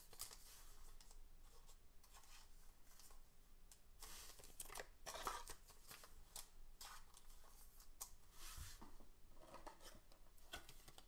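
Faint rustling of a trading card being slid into a clear plastic sleeve and handled, in a series of short swishes.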